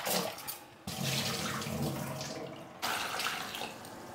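Water from a kitchen tap running and splashing into a vessel of cut potatoes as they are rinsed, coming in uneven rushes.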